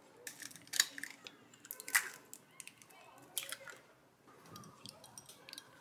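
Raw eggs being cracked into a glass bowl, three sharp cracks about a second apart, followed near the end by a small wire whisk starting to beat the eggs.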